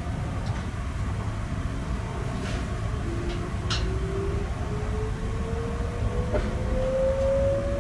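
Inside an electric train pulling away: a low steady rumble of the running gear with a few sharp clicks a few seconds in, and the traction motors' whine starting about three seconds in and rising steadily in pitch as the train gathers speed.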